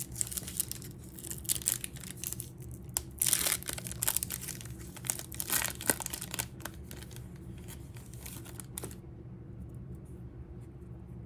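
Foil wrapper of a Topps Chrome trading-card pack being torn open and crinkled by hand, a run of sharp crackles and rips that stops about nine seconds in.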